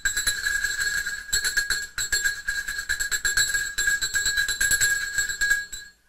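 A medium-size Swiss dog bell shaken continuously, its clapper striking rapidly over a steady high ring. There is a brief dip about two seconds in, and the ringing stops just before the end.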